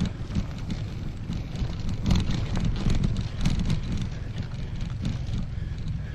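Wind buffeting the microphone during a mountain bike ride over rough ground, a steady low rumble with scattered rattles and knocks from the bike.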